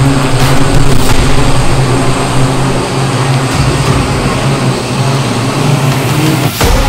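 Airspeeder electric flying racing car in flight, its multirotor propellers giving a loud, steady buzzing hum with a constant low tone.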